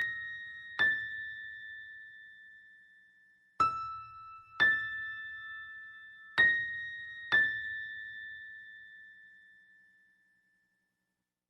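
Horror sound effect of slow, high bell-like struck notes: six strikes in three pairs, each ringing out and slowly fading.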